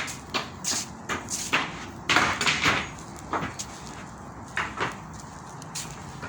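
Footsteps crunching on a trail path, about a dozen uneven steps with a short pause midway.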